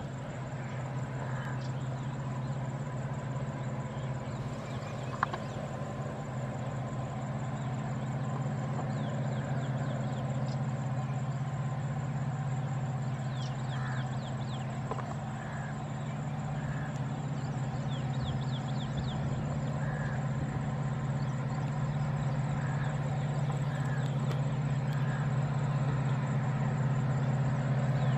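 Diesel locomotive running with a steady low engine hum, gradually louder as the train approaches slowly. Birds chirp in the background.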